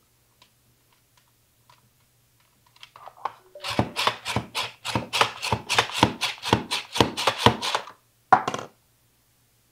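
White mushrooms being cut on a hand-operated vegetable slicer: a quick run of sharp slicing strokes, about three or four a second for some four seconds, then one more short stroke. Light handling ticks come before the run.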